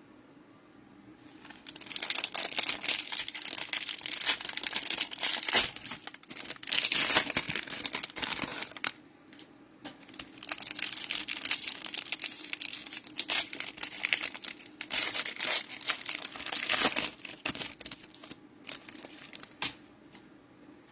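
Cellophane wrapper of a trading-card cello pack crinkling and tearing as it is opened by hand, in irregular stretches of crackle with short pauses.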